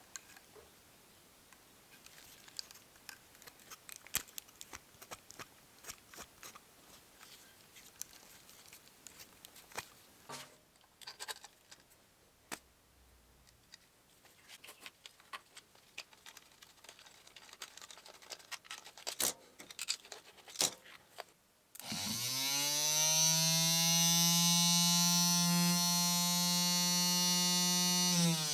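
Light scattered clicks and taps of hand work, then a small electric motor switched on: it spins up quickly to a steady whine, runs for about six seconds, and begins to wind down at the end.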